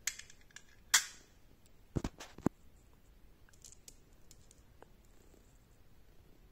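Glass marbles clicking against each other and against a small metal tin as they are picked out by hand: one sharp click about a second in, a quick run of clicks around two seconds, then only faint ticks.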